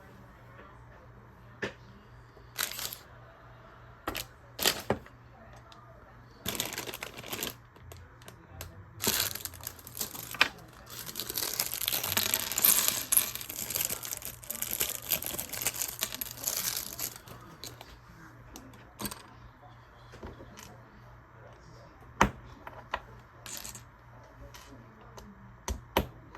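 Small plastic Lego pieces clicking and clattering in sharp, scattered ticks. For several seconds in the middle, a plastic parts bag crinkles as it is handled.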